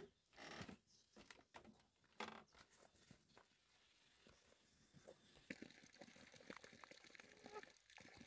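Near silence: faint background with a few scattered soft taps and rustles.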